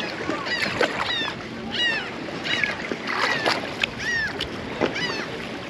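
Wind and water washing around in shallow sea, with a run of short, high calls falling in pitch, one roughly every half-second to second.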